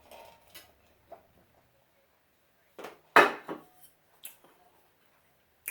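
Cutlery clinking and knocking against a dish: a few separate short clicks, the loudest about three seconds in.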